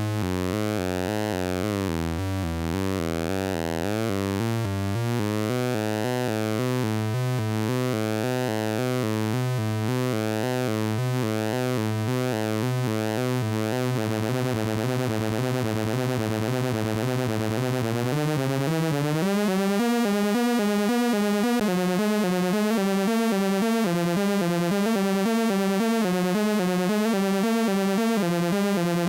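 The Aurorawhorymalice, a handmade 9-volt CMOS square-wave synth, plays a continuous buzzy bass drone that pulses rapidly under its automated pulse-width and filter modulation, with a wavering sweep in the first few seconds. About 19 seconds in, the tone steps up to a higher pitch and gets slightly louder.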